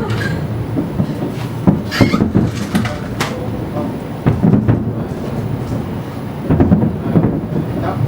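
Aerial fireworks shells bursting overhead: a run of deep booms with sharper cracks, coming in clusters about two seconds in, at four seconds and again near the end, over a continuous rumble.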